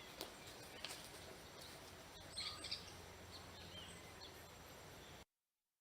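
Faint outdoor background noise with a few short, high bird chirps about halfway through and a couple of light clicks; the sound cuts off suddenly near the end.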